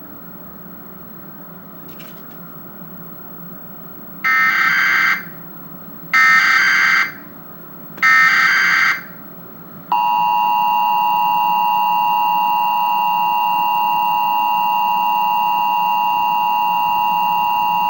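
Emergency Alert System broadcast of a required monthly test. Three short bursts of SAME digital header data, each about a second long, come first, then about ten seconds in the two-tone EAS attention signal (853 and 960 Hz sounding together) holds steady for about eight seconds.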